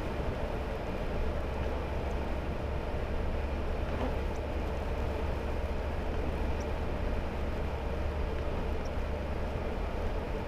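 Hummer H3 driving steadily on a wet road: even engine rumble and tyre noise, with a faint light tick about every two seconds.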